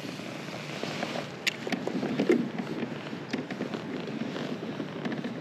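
Wind noise and choppy water lapping against a kayak, with scattered light clicks and crackles.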